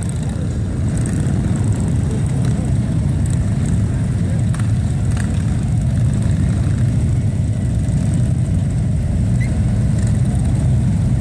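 Many large touring motorcycles riding past slowly in a column, their engines blending into a steady, loud low rumble.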